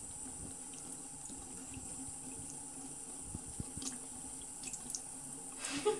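Bathroom sink faucet running a thin, steady stream of water, with a few light splashes as a kitten paws at it. A brief, louder burst comes near the end.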